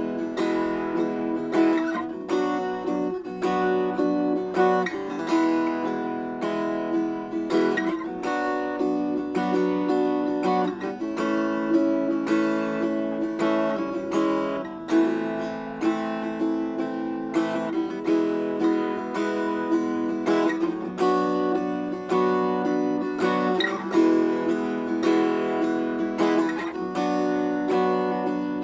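RJ Acousticaster acoustic-electric guitar played continuously, strumming and picking chords with several new strokes a second.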